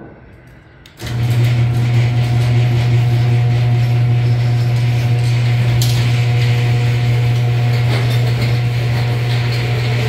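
Craftsman 1/2 HP chain-drive garage door opener (model 139.53910D) starting with a click about a second in, then running steadily: a motor hum with the chain drive rattling as it pulls the door down, running smoothly.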